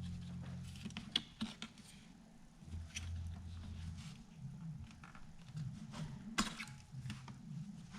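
Faint scattered clicks and light handling noises of a laptop memory module being unclipped and lifted out of its slot, over a low hum.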